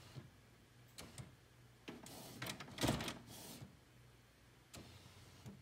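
Canon MX922 inkjet printer's mechanism clicking several times, with a louder mechanical rattle from about two to three and a half seconds in, as it tries to read a newly seated ink cartridge.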